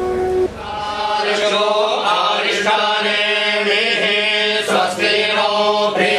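Hindu mantra chanting: voices intoning a Sanskrit chant over a steady low held tone. The last ring of a temple bell dies away about half a second in.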